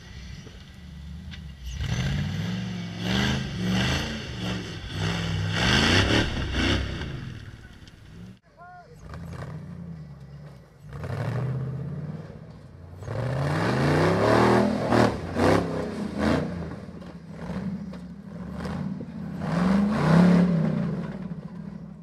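Rock bouncer buggy's engine revving hard in repeated bursts, the pitch rising and falling, with knocks from the buggy working over rock. The sound breaks off suddenly about eight seconds in, then the revving picks up again.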